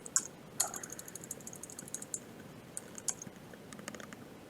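Typing on a computer keyboard: a quick run of keystrokes starting about half a second in, then scattered single key presses.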